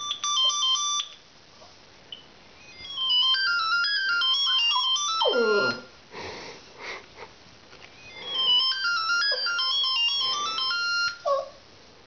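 A mobile phone ringtone plays a beeping melody in three bursts. A Lhasa Apso joins in with a howl that slides down in pitch about halfway through, and gives a short whine near the end.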